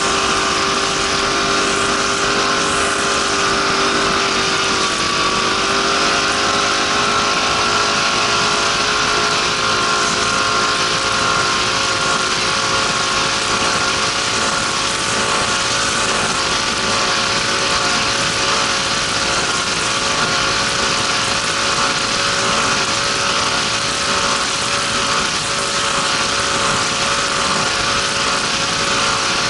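Race boat's engine running flat out at high, steady revs under a constant rush of wind and water. The engine pitch dips slightly about five seconds in, then settles back.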